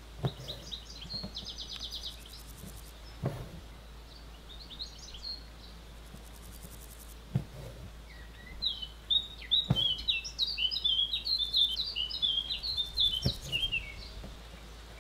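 Small birds chirping, with a long run of rapid, jumbled chirps from about halfway through. A few soft low knocks come in between.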